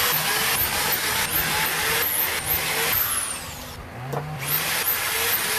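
Power drill driving screws into wood, in two runs: a long one of about three and a half seconds, a brief pause, then a shorter one, with the motor's pitch rising and falling as each screw seats.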